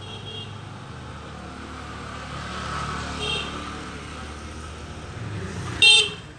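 Steady traffic din from the street, with a couple of short ringing tones. Near the end comes a sharp, loud metallic clink as metal pipe fittings in a bin are handled.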